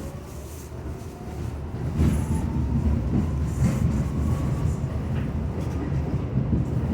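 R62 subway train running on the rails: a low rumble of wheels on track with clacks over the rail joints, getting louder about two seconds in, and a faint, slowly rising motor whine as it picks up speed.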